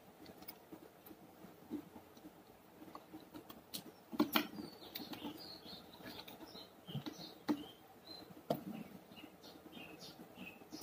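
Faint handling sounds: plastic pens clicking against one another and cotton cloth rustling as the pens are slipped into a fabric pen pouch, with a few sharper clicks scattered through.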